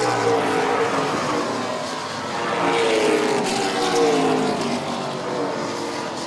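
A pack of late model stock cars racing past, several V8 engines at high revs with overlapping pitches that rise and fall. It gets louder about three to four seconds in.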